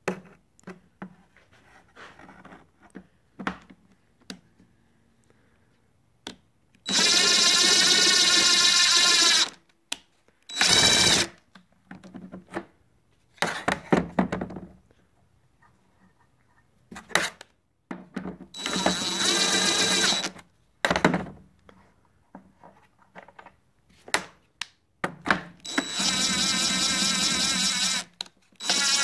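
Cordless drill driving the router lift to raise and lower the bit, running in about seven short bursts of whine, the longest two to three seconds, with small clicks and knocks between them.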